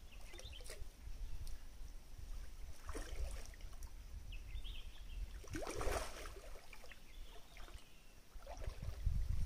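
Water sloshing and splashing in a shallow stream, with the loudest splash about six seconds in, over a low rumble.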